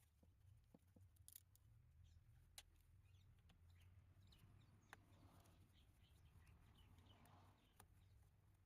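Near silence: a faint low hum with a few scattered faint clicks.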